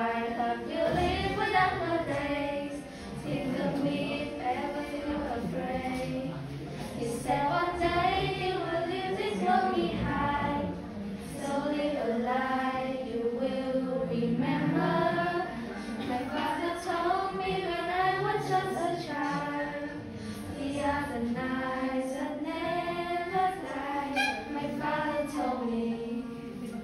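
Several young female voices singing a song together, the melody rising and falling without a break.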